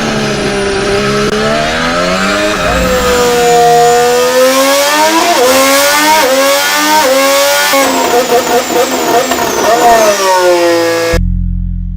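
Formula 1 car engine at high revs, its pitch falling and rising again and again, with several quick jumps in pitch in the middle as gears change. Near the end it cuts off abruptly to a steady low tone.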